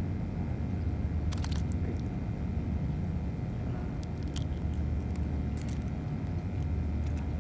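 A steady low rumble, with a few short metallic clicks as the fish grip holding a false scorpionfish is handled.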